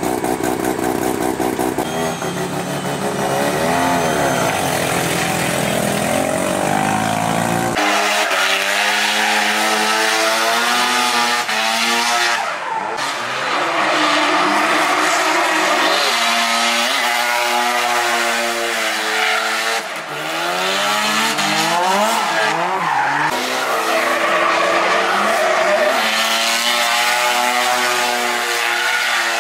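Turbocharged Mazda RX-7 (FD3S) drift car driven hard through slides, its engine revving up and down over and over with tyres squealing and skidding. The sound changes sharply about 8 seconds in, when its deep low end drops out.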